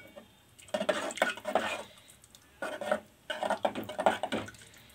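Metal ladle stirring thin bassaru curry in a metal pot, scraping and clinking against the pot's sides and bottom. It comes in three bursts: about a second in, near the middle, and a longer one toward the end.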